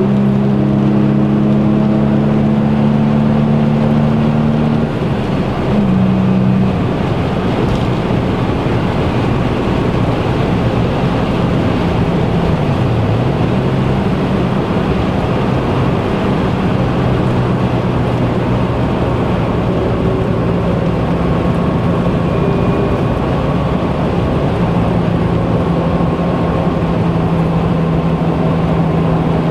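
A car driving at motorway speed, heard from inside the cabin: a steady engine note over continuous tyre and wind noise. A little before halfway through, the engine note drops briefly in pitch and comes back up.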